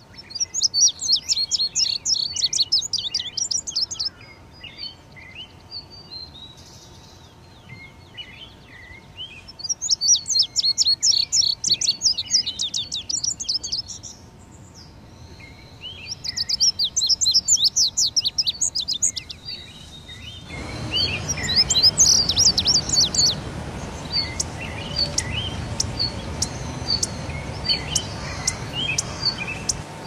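A small songbird singing in bursts of rapid high chirping notes, each burst about three to four seconds long with pauses between. About two-thirds of the way in, a louder background hiss comes up, with short chips repeating about twice a second.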